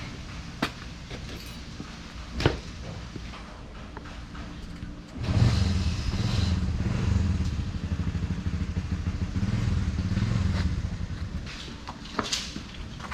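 Custom motorcycle engine that starts up suddenly about five seconds in, runs with a steady low pulsing for about six seconds, then fades out. A couple of sharp clicks come before it.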